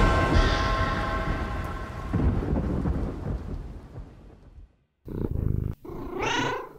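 Thunder rumbling and dying away under the last fading notes of spooky outro music, with a second swell about two seconds in. After a brief silence near the end, a short low purr, then a cat meowing once.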